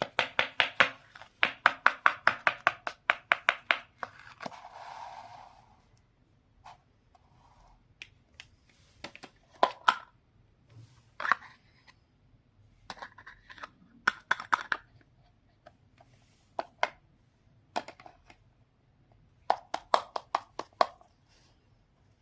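Small toy kitchen pieces clicking and tapping against each other: a quick even run of about ten sharp taps a second for the first four seconds, a short soft rustle, then scattered clicks and brief clusters of taps.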